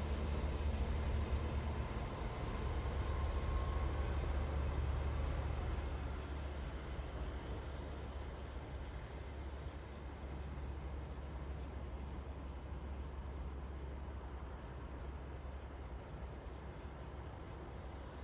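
Class 295 diesel-hydraulic shunting locomotive running light, its diesel engine giving a low, steady drone that fades after about six seconds as the locomotive moves away.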